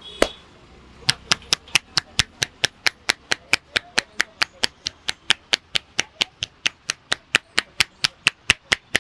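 Hands striking in a head-and-neck massage: one loud slap, then from about a second in a fast, very even run of sharp slaps, about five a second.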